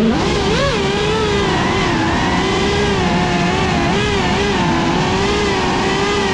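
Cinelog35 FPV cinewhoop drone's brushless motors and ducted propellers whining, the pitch rising and dipping with the throttle and running steadier near the end.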